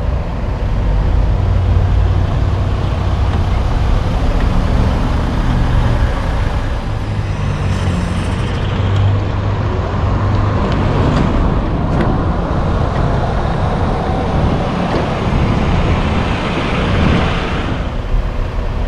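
Diesel semi-truck pulling a loaded car-carrier trailer past at low speed, its engine running with a low rumble over road traffic noise.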